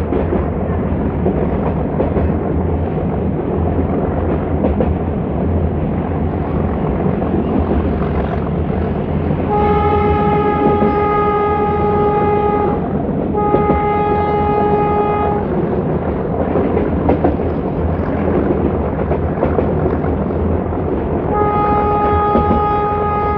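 YDM4 diesel locomotive's horn sounding three times: a blast of about three seconds, a shorter one of about two seconds, and a third starting near the end. Under it is the steady low rumble of the metre-gauge train running.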